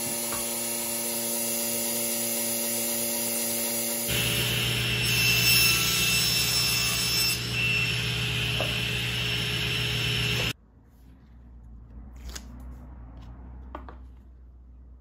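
Gast 0822 oilless rotary-vane vacuum pump running with a steady hum. About four seconds in, the sound changes to a louder, rougher steady machine noise. That noise cuts off abruptly near ten seconds in, leaving only faint handling sounds.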